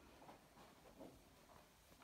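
Near silence: quiet room tone with a few faint, soft footsteps.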